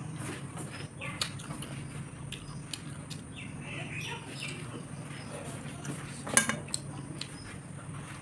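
Close-miked eating sounds: chewing and biting grilled chicken with small wet mouth clicks and lip smacks, and fingers working in the rice on the plate, over a steady low hum. A sharp clink about six seconds in is the loudest sound.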